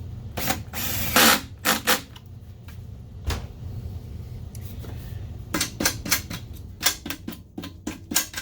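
Series of sharp clicks and knocks from a metal M6 screw and hand tools being handled against the projector's casing as the screw is fitted, with a short scrape about a second in and a quick run of clicks near the end.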